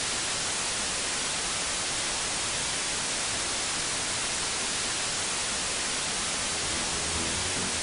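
Steady hiss of white noise, like static, at an even level throughout. Low music notes begin to come in under it near the end.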